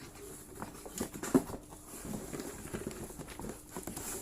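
Cardboard laptop box being opened and handled: irregular scraping and light knocks, with one sharp knock about a second and a half in.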